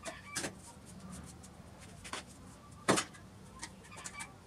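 Short plastic knocks and clicks of PVC pipe and fittings being handled and pushed together, the loudest knock about three seconds in.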